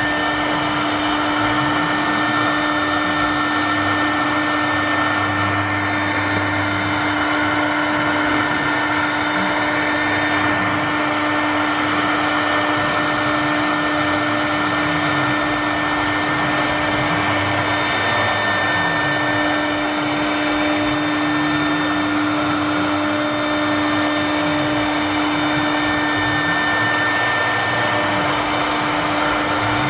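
CNC router spindle running with a steady high whine while its cutter engraves lines into a wood board. Underneath, a lower drive whine keeps rising and falling in pitch as the head traces the curves of the design.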